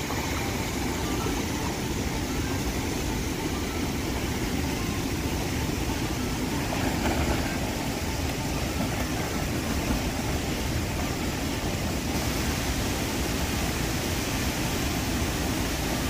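Steady rushing of a waterfall pouring into its pool.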